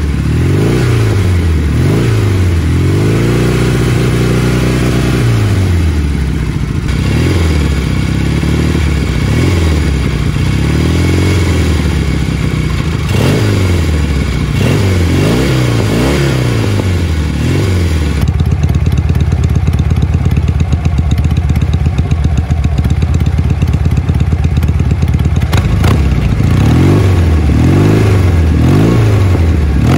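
Norton 650SS parallel-twin engine running on its stand through cigar-shaped Manxman-pattern silencers, the throttle blipped over and over in quick rises and falls, with one longer held rev about four seconds in. About eighteen seconds in it settles to a steady idle, then is blipped a few more times near the end.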